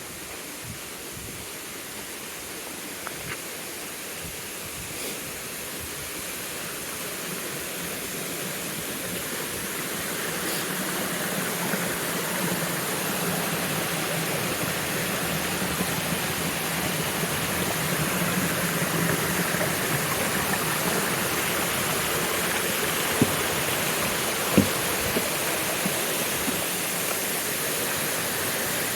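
Rushing water, a steady roar that grows louder over the first half and then holds. Two short sharp knocks come near the end.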